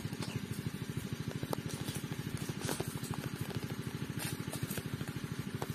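An engine running steadily nearby: a rapid, even chugging of about twelve beats a second, with a few faint clicks over it.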